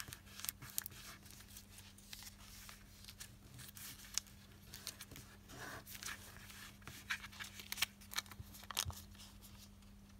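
Origami paper being folded and creased by hand: scattered crisp rustles and crackles that die away shortly before the end.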